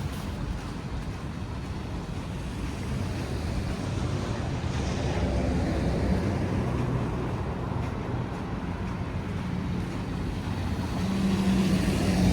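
Road traffic: motor vehicles passing with a steady low rumble, and one vehicle's engine hum growing louder near the end.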